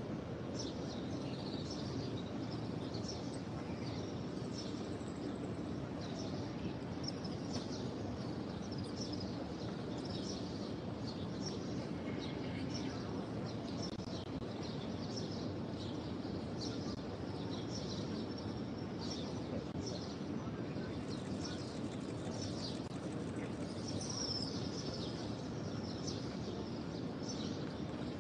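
Many small birds chirping, short high calls coming several times a second over a steady low background noise.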